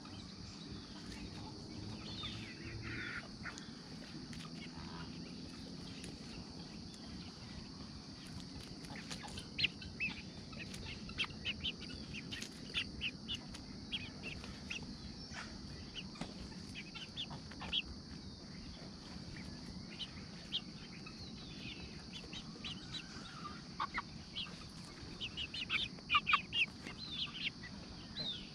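Hens and half-grown chicks feeding on lettuce and papaya scraps: soft clucking and a scatter of short sharp sounds from their calls and pecking, busiest near the end, over a steady high hum.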